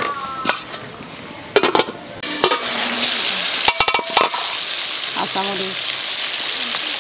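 Onion-tomato curry masala frying in an aluminium karahi, with a metal spatula clinking and scraping on the pan. About two seconds in, a louder, steady sizzle and bubbling takes over, with a few more ringing metal clinks around four seconds.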